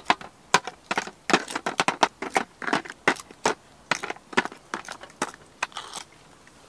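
Oysters in the shell being moved with metal tongs from a pot into a stainless steel tray: irregular clacks and clatters of shell on shell and on the metal tray, stopping near the end.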